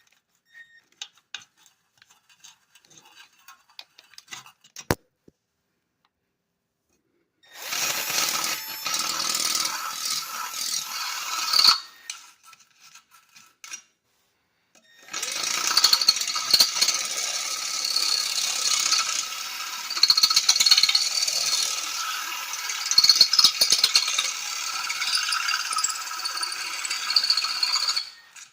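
Tools breaking up and digging out the ceramic honeycomb inside a catalytic converter to gut it. It starts with scattered clicks and taps, then a burst of rattling and grinding, a short pause, and a long stretch of steady grinding and rattling through the rest.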